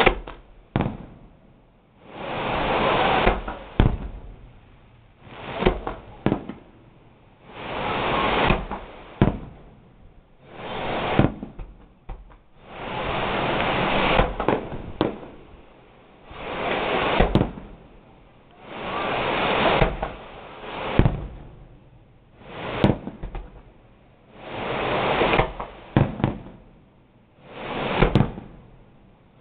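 Fireworks going off in a steady barrage, a loud rushing boom every two to three seconds, many with sharp cracks in them.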